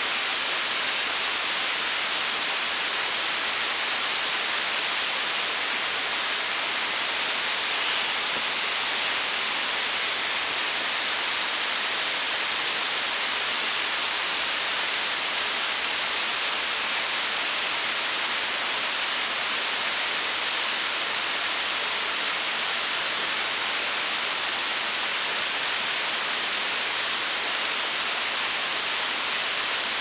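Small waterfall cascading down a rock face: a steady, even rush of falling water.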